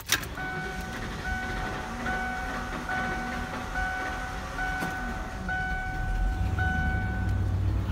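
A Ford F-150 pickup's dashboard warning chime sounding a steady beep about eight times, evenly spaced a little under a second apart, over the truck's engine running; a short click comes right at the start.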